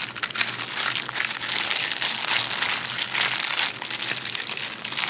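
Thin plastic packaging crinkling and rustling as hands pull a plastic mailer bag open, a continuous run of small crackles.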